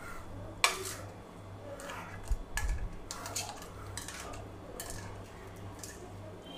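Light clinks and scrapes of a plastic spoon and stainless steel plates as set agar-agar jelly is broken into pieces, with one sharp clink about two-thirds of a second in and a dull thump near the middle.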